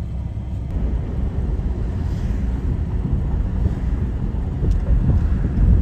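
Steady low rumble with wind on the microphone, growing louder near the end.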